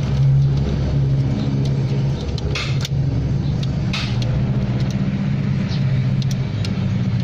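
A steady engine-like drone throughout, with a few short sharp clicks of tools or metal parts about two and a half and four seconds in.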